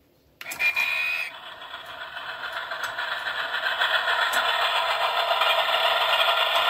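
Flying Scotsman cuckoo clock's built-in sound module playing its steam-locomotive effect through a small speaker: a short whistle about half a second in, then steam-train running noise that grows steadily louder.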